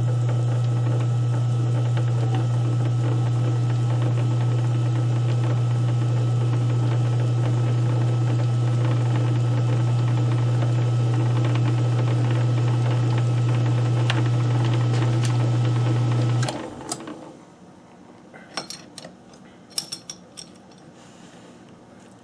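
South Bend lathe running in back gear in reverse with a steady hum, backing a tap out of the work held in a hand-held tailstock tap holder; the motor is switched off about three quarters of the way through and the hum stops suddenly. A few light metallic clicks follow.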